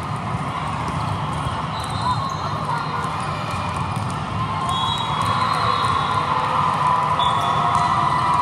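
Volleyball rally in a large, echoing hall: thuds of the ball being played and a few short high squeaks over steady crowd noise, which swells into cheering near the end as the point is won.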